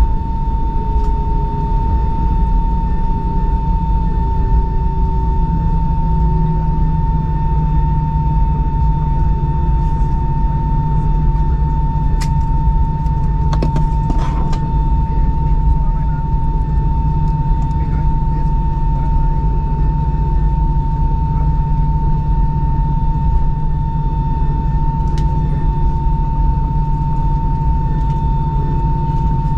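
Airbus A319 cabin noise while taxiing: a steady low rumble from the jet engines at idle, with a constant high whine throughout. A couple of faint clicks come about halfway through.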